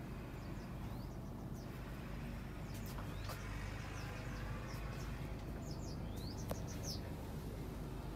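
Steady low hum of the Isuzu Journey bus's 6HE1 inline-six diesel idling, heard from inside the cabin. Birds chirp briefly a few times outside.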